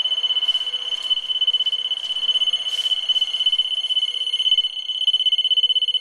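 E-ONE grinder pump control panel's high-water alarm sounding a continuous high-pitched electronic tone with a fast flutter. The water in the pump tank has reached the alarm level, which shows that the alarm is working.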